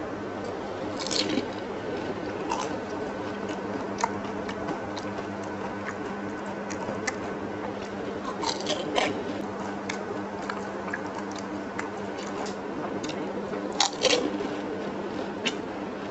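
Close-up crunching and wet chewing of fuchka (pani puri): crisp hollow shells dipped in sour tamarind water cracking between the teeth and squishing in the mouth, with sharper crunches about a second in and near the end. A steady low hum runs underneath.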